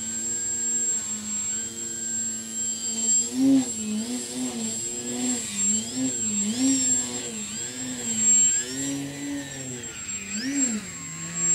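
Radio-controlled aerobatic model plane's motor and propeller whining as it hovers nose-up. The pitch is steady at first, then rises and falls again and again with quick throttle bursts from about three seconds in.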